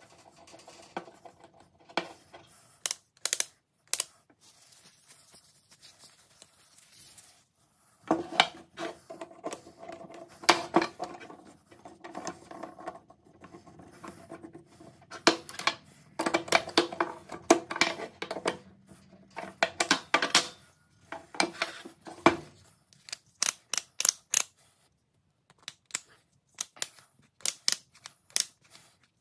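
Steel and brass parts of a handmade ratchet wrench clicking, clinking and scraping as they are handled and screwed together on a wooden bench. The clicks come in irregular clusters with quiet gaps, some with a short metallic ring.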